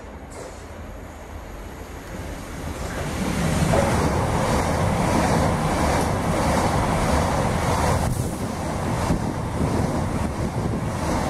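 A multiple-unit passenger train approaching and running past at speed: a rushing noise that grows over the first few seconds, then stays loud and steady while the carriages go by.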